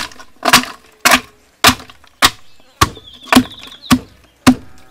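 A pestle pounding cebil bark in a wooden log mortar, crushing it: about nine sharp, regular thuds, nearly two a second, each with a short wooden ring.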